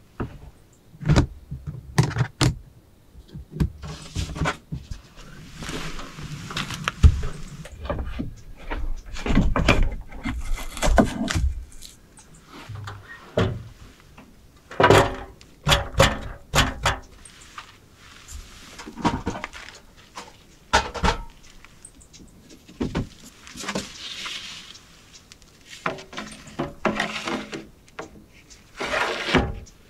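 Camping gear being handled by hand: an irregular run of knocks, clatters and rustling or scraping from a plastic storage box and the items in it. Near the end an OSB board is set down and moved across the truck bed's edge, with a longer scrape.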